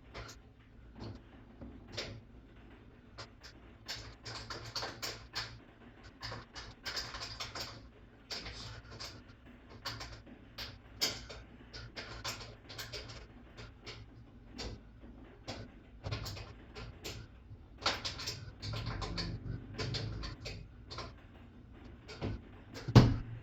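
Irregular clicks, rattles and scrapes of tools and metal parts being worked by hand on a front-load washer's door hinge, with one loud knock near the end.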